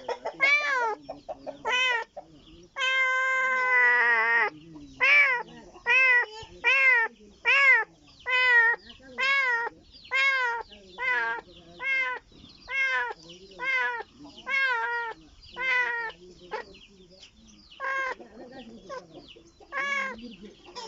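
A kitten meowing over and over, about one short cry a second, each rising and then falling in pitch, with one longer drawn-out cry about three seconds in. These are a kitten's calls for its mother.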